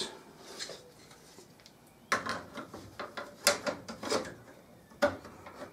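A PC case side panel being fitted back onto the tower: a run of scrapes and knocks starting about two seconds in, the loudest knocks near the middle and just before the end.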